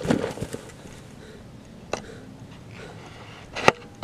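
A body landing on grass, with a short run of thuds and rustling as he settles, then quiet; a single sharp knock near the end is the loudest sound.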